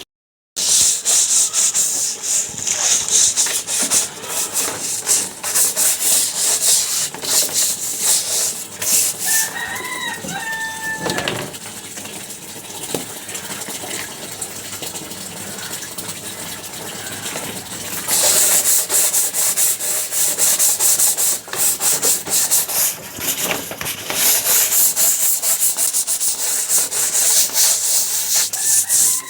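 Chicken droppings being scraped off a cage tray: repeated rasping scrape strokes, softer for several seconds midway before picking up again. A chicken calls briefly about ten seconds in.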